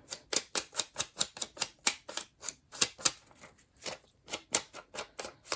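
Quick, irregular tapping, about four or five taps a second: an ink pad being dabbed against paper to ink the edges of a pocket.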